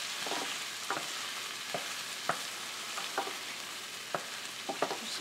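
Onion and canned peas and carrots frying in olive oil in a pan, a steady sizzle. A wooden spoon stirs them, knocking against the pan several times.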